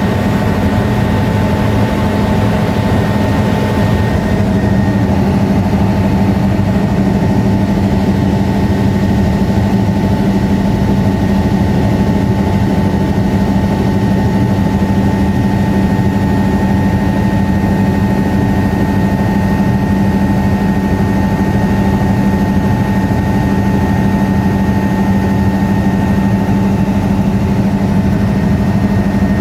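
Helicopter running steadily in flight: an even engine and rotor drone with constant whining tones that hold the same pitch throughout.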